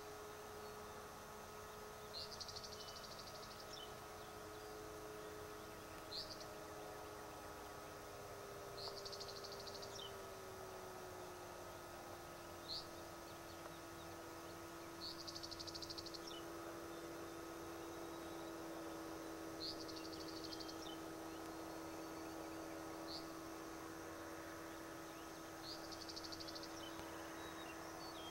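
A songbird singing over and over: a short high note followed by a buzzy, high trill about a second long, repeated every three to four seconds. Under it a faint steady hum that drops in pitch about ten seconds in.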